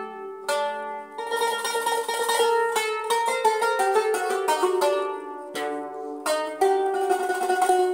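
Background music: a quick melody of plucked-string notes.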